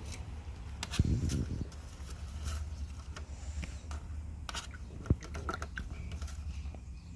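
Light taps and clicks of paintbrushes and paint pots handled on a table while children paint a wooden birdhouse, with a heavier bump about a second in and a sharp click about five seconds in.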